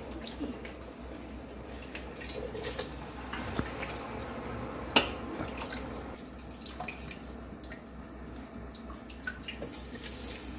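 Water dripping and trickling off soaked sweet potato starch glass noodles lifted from a bowl of water, with scattered snips of kitchen scissors cutting the noodles and one sharper click about halfway through.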